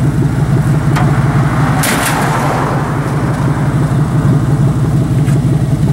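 Vehicle engine idling steadily, with a click about a second in and a brief rush of noise about two seconds in.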